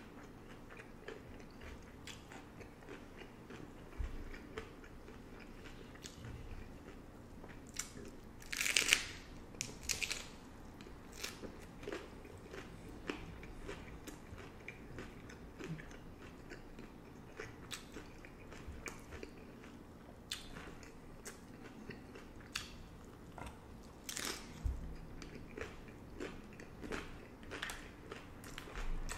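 Hard-shell beef tacos being bitten and chewed, with crisp shell crunches scattered throughout. The loudest bursts of crunching come about nine seconds in and again near twenty-five seconds.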